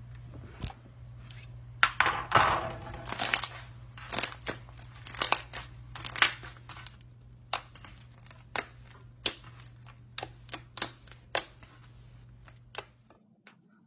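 Slime being squeezed and worked by hand: a string of sharp wet clicks and pops, thick in the first few seconds and then spaced out. Under them runs a steady low hum that cuts off near the end.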